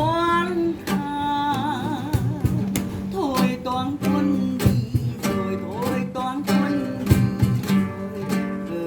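Music with a steady beat of sharp strokes under a melody line that wavers in pitch with wide vibrato.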